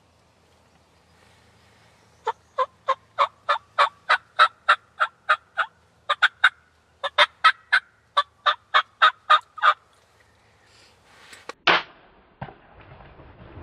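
Wild turkey yelping: a long run of about two dozen sharp, evenly spaced notes, roughly three a second, with two short breaks. Near the end comes one loud, short burst, then a click.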